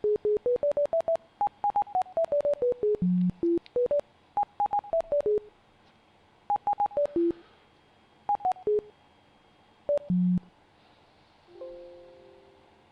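Computer-generated beep tones from bioresonance software as it runs a remedy preparation. A quick run of short electronic beeps climbs and falls in pitch like a simple tune, each with a click at its start. Then come a few sparser groups of beeps, and a soft two-note tone fades out near the end.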